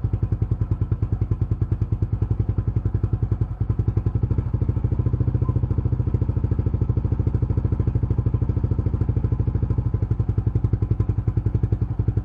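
2002 Yamaha XT600E's single-cylinder four-stroke engine idling steadily with an even, rapid thumping, warming up after a cold start.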